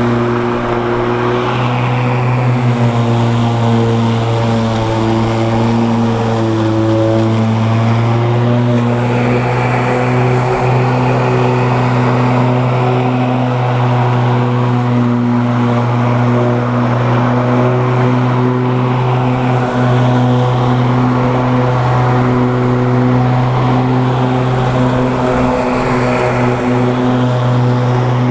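GreenWorks 20-inch 12-amp corded electric lawn mower running while cutting grass: a steady motor hum whose pitch dips briefly a few seconds in as it takes load.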